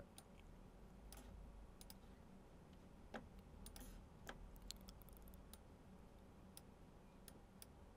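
Near silence broken by faint, scattered computer mouse clicks, about a dozen of them.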